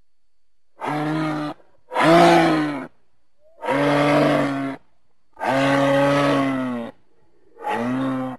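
Cow moose calling: five drawn-out calls, each about a second long and held at a steady low pitch, with short pauses between them.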